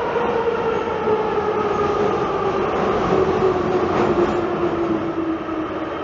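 Metro train running in a tunnel, heard loud and rumbling, with a motor whine that falls slowly and steadily in pitch as the train slows down.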